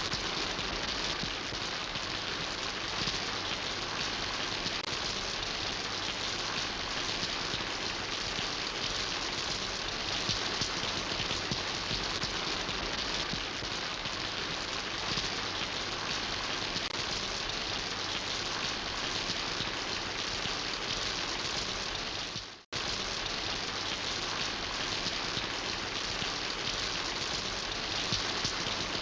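Steady rain falling, an even hiss of drops with no let-up. Just past two-thirds through, it cuts out for a split second and then resumes.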